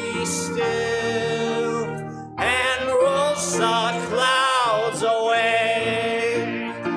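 Congregational hymn singing led by a man's voice on the pulpit microphone, with instrumental accompaniment. Long held notes with vibrato, and a short break between phrases a little over two seconds in.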